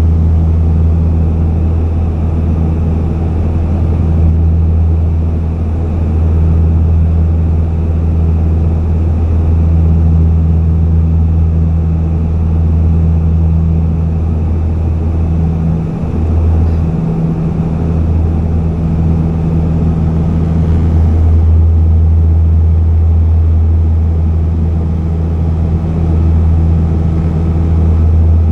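Steady low drone of a small propeller plane heard from inside the cabin, a deep hum with a fainter tone above it that barely changes, dipping briefly about two-thirds of the way through.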